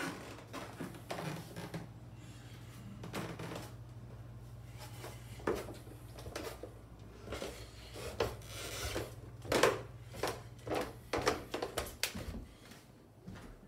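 Footsteps on bare wooden stairs and floorboards: irregular knocks and rubs, busiest in the second half, over a steady low hum that stops near the end.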